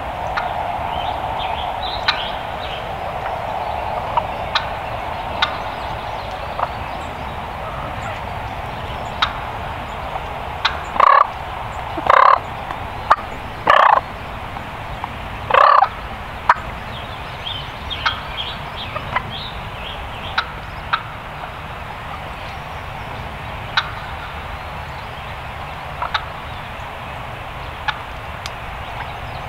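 Wild turkey gobbler gobbling, four loud gobbles in quick succession about a third of the way through, over a steady outdoor background hiss.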